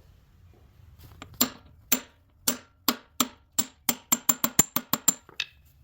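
Hammer blows through a block of wood, driving a new pilot bushing into the crankshaft of a GM LS V8: about fifteen sharp knocks starting about a second and a half in, slow at first and quickening near the end, as the very tightly fitting bushing is seated flush.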